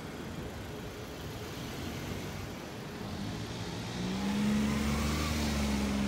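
Road traffic noise; about four seconds in, a nearby motor vehicle's engine comes up close as a steady low hum with a rumble beneath it.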